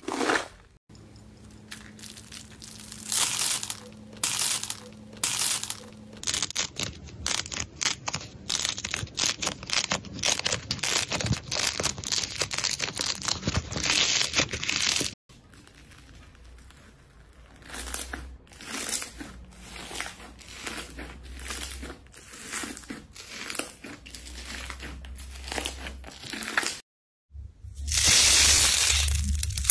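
Slime squeezed and pressed by hand, giving quick runs of crackling, popping clicks. The clicking is densest in the first half and loudest near the end.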